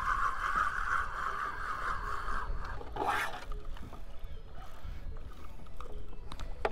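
Spinning reel whirring steadily as line is worked against a hooked fish, stopping about two and a half seconds in. A brief sharp noise follows about three seconds in, with low water and wind rumble underneath.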